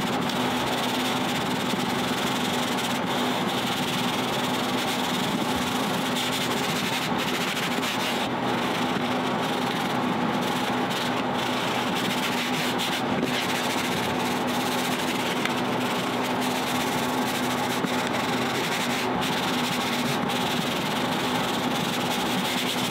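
A steady machine noise with a low hum, even in level throughout, like a small engine or blower running.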